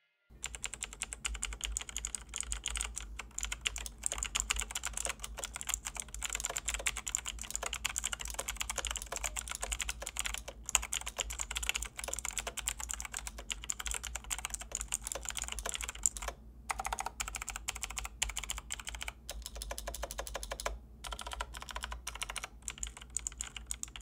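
Typing on a Razer BlackWidow Elite mechanical keyboard with Razer Green switches: fast, loud, clicky keystrokes. Near the end come slower, separate presses, including the stabilized spacebar.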